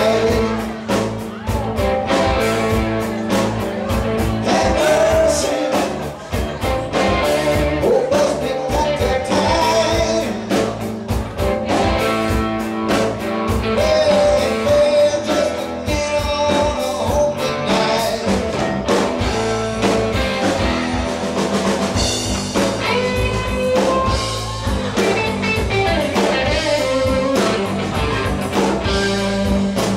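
A live blues-rock band playing: electric guitar, electric bass and drum kit, loud and steady throughout.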